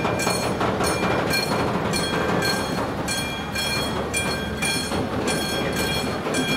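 Level crossing warning bell ringing about twice a second over the continuous rumble of a TGV trainset rolling across the crossing, wheels clacking over the rail joints.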